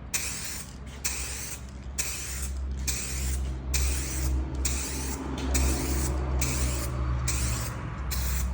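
Aerosol can of SprayMax 2K two-part clear coat hissing in about ten short bursts with brief pauses between them, as light first-coat passes are sprayed across a restored headlight.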